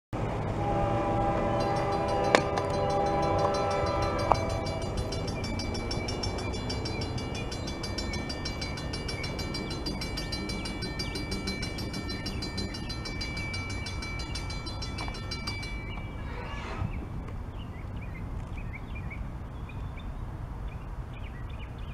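An approaching freight locomotive's multi-tone air horn sounds for about four seconds and cuts off, over a low rumble, with two sharp clicks during it. The grade-crossing warning bell then rings rapidly and steadily while the crossing signals flash and the gates lower, and stops about 16 seconds in.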